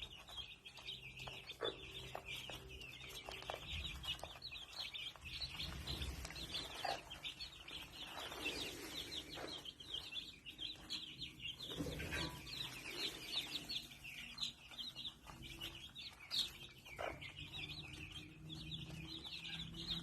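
A flock of chickens clucking, over a dense stream of quick, high-pitched chirps.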